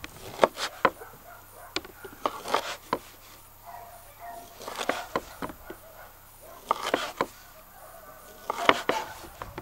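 Knife chopping food on a cutting board, in about five short bursts of a few sharp strokes each.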